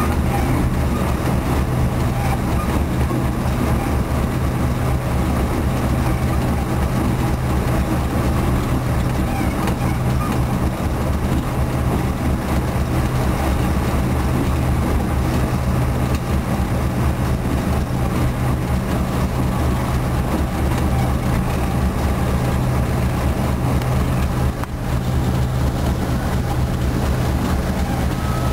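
D12E diesel locomotive heard from inside its cab while under way: the diesel engine's steady, loud drone with a strong low hum, over running noise. There is one brief dip in level near the end.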